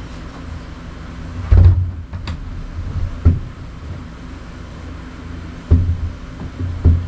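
Pre-hung exterior door being shoved and jiggled into its framed wall opening, knocking against the framing in about four dull thumps, the loudest about one and a half seconds in. A steady low hum runs underneath.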